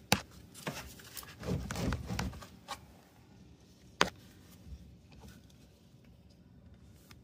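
Hard plastic clicks, knocks and rubbing as the tabs of a dishwasher's plastic base are pried and worked loose by hand: a sharp snap right at the start, scattered knocks and scraping over the next couple of seconds, and another sharp click about four seconds in.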